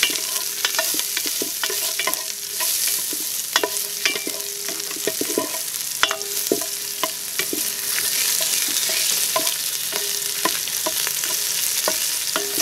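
Garlic, onion, ginger and black pepper sizzling in oil in a large metal stockpot while a wooden ladle stirs them, scraping and knocking against the pot. This is the sauté of the aromatics at the start of a soup.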